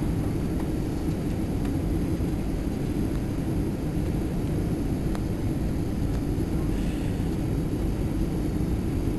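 Steady low rumble of a Boeing 737 airliner heard from inside the passenger cabin: jet engines and rushing airflow as the plane descends on final approach.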